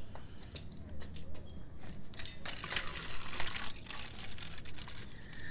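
White vinegar being poured from a plastic gallon jug into a plastic bottle, splashing unevenly as the bottle fills, loudest about halfway through.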